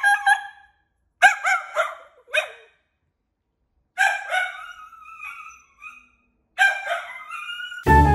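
Small dog barking at its own reflection in a TV screen. The barks come in four separate bursts with short silences between them.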